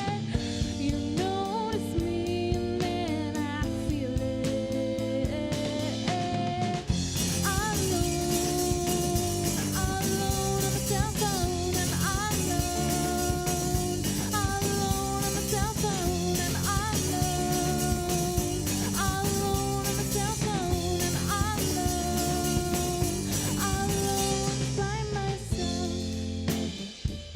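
A punk-pop band playing: electric guitar, bass and drum kit with a sung melody, the cymbals crashing in about seven seconds in and the band dropping out briefly near the end.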